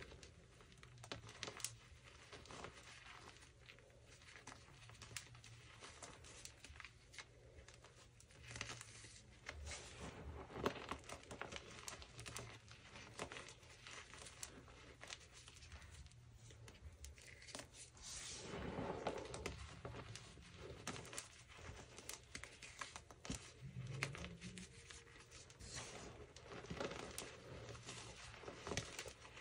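Friction Labs gym chalk, loose powder and small chunks, being squeezed and crumbled between bare hands: soft, irregular crunching and crackling with many small clicks.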